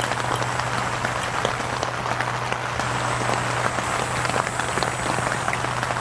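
Steady rain falling on the tent, a dense, even patter of many small drops, with a steady low hum underneath.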